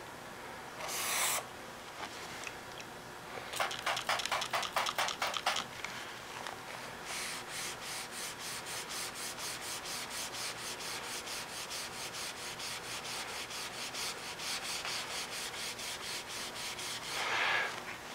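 Scrubbing back and forth by hand on a regular-painted surface with Goof Off No. 2 solvent, trying to lift black Sharpie marker. The strokes come in even rhythm, about four to five a second, with a short hiss about a second in and a quicker run of strokes a few seconds in.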